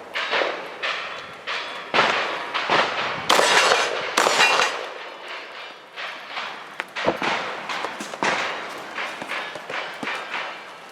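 A rapid string of gunshots from a cowboy action shooting stage, about two shots a second, with the loudest shots packed together from about two to five seconds in.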